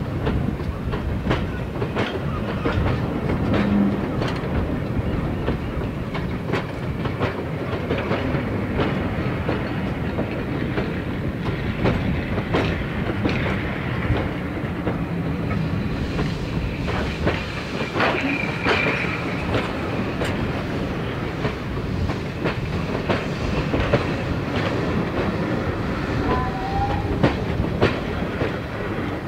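Rake of passenger coaches rolling past on a departing steam-hauled train, wheels clicking and knocking over the rail joints with a steady rumble.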